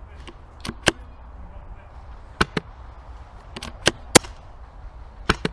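Airsoft gunfire: a string of sharp snaps, mostly in pairs about a fifth of a second apart, nine in all.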